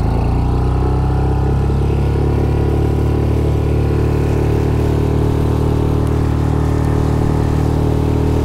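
Outboard motor on an inflatable boat picking up speed in the first second, then running steadily under way.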